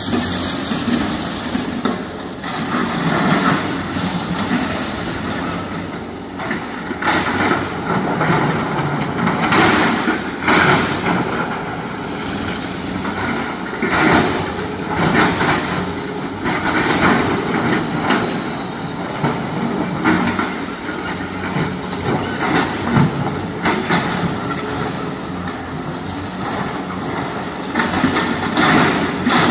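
Heavy diesel machinery working in a rock quarry: a tipper truck and hydraulic excavators running, with recurring loud scrapes and clatters of broken rock.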